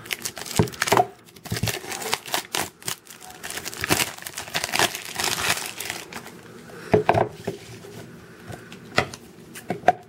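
Clear plastic packaging being handled and opened: irregular crinkling and crackling of plastic with sharp clicks and snaps from the hard plastic case, the loudest clicks coming about seven and nine seconds in.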